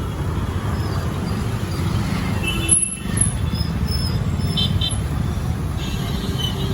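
Street traffic noise: a steady rumble of passing vehicles, with a few short high tones and one brief louder sound just under three seconds in.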